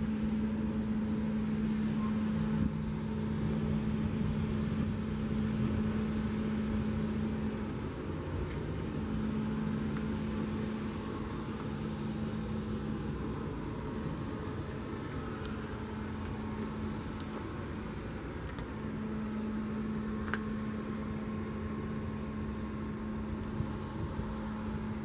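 Steady vehicle noise: a constant low rumble with a steady low hum that drops out for a few seconds at a time.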